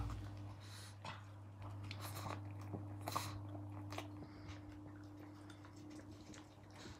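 A pug chewing and biting corn off the cob, with irregular crunching bites, over a low steady hum.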